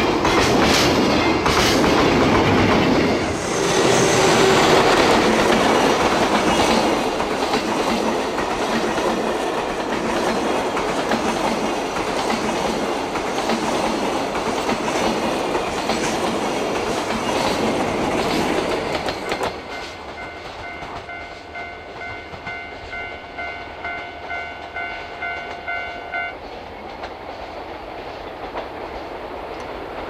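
A train passing close by, wheels clattering over the rail joints, loud and then easing off about two-thirds of the way through as it moves away. After that a pulsing ringing of several steady tones sounds for a few seconds and stops abruptly, over the fading rumble.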